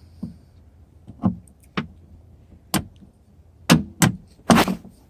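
Irregular sharp clicks and knocks from the window motor being turned by hand inside a Jeep Wrangler's rear door to lower the glass, about seven over a few seconds, the loudest one near the end.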